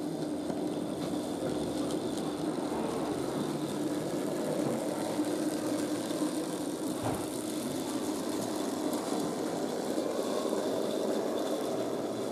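A 009 narrow-gauge model steam locomotive and its wagons running along the layout track: a steady motor hum and wheel rumble, with one short knock about halfway through.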